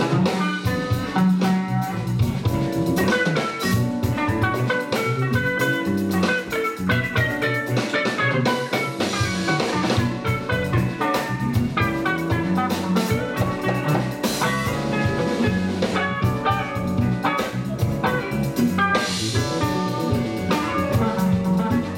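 Live gospel band playing: drum kit and electric guitars with keyboard, a steady beat throughout.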